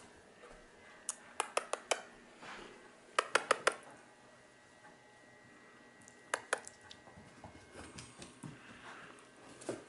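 Quick, sharp clicking taps on a hardwood floor in three short bursts: five about a second in, four around three seconds in and three past the six-second mark.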